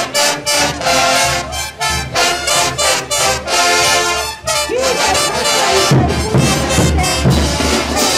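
Bolivian brass band playing: trumpets, trombones and sousaphones in loud chords, with bass drums and cymbals coming in strongly about six seconds in.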